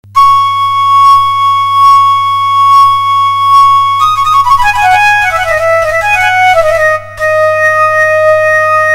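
Background music: a solo wind instrument holds one long high note for about four seconds, then plays a quick falling run and settles on a held lower note after a short break about seven seconds in, over a steady low drone.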